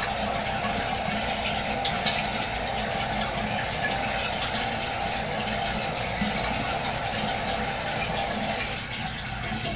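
A tap running steadily into a sink, water for wetting the face before a shave; the flow is shut off near the end.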